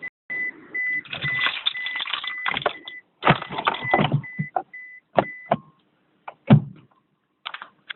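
Toyota Prius (2004, second generation) warning beeper sounding a high beep over and over, mixed with sharp clicks and knocks, while the car fails to go to READY. The beeping stops about five and a half seconds in, leaving scattered clicks.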